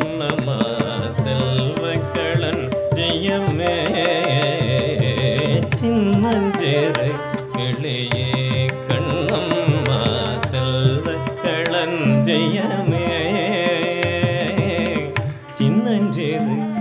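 Carnatic music: a male voice singing with melodic accompaniment over rhythmic mridangam strokes, and a steady low drone beneath.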